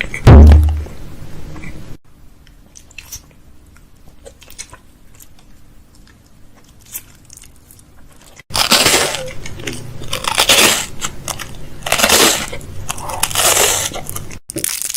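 Close-miked ASMR makeup sounds: a heavy thump just after the start, a few soft taps, then from about halfway a run of four or five loud scratchy swishes of a makeup brush sweeping against the microphone.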